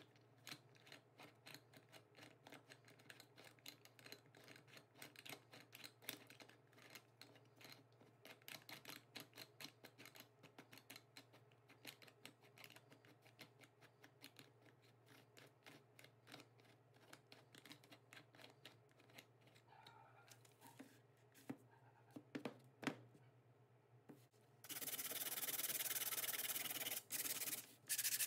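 Homemade wooden vise being cranked by its bolt handle, the steel threaded rod turning in the coupling nut as the wooden jaw slides: a fast run of faint metallic clicks and scrapes. About 25 seconds in, a much louder steady rubbing starts, sandpaper worked over the wood, with a brief break near the end.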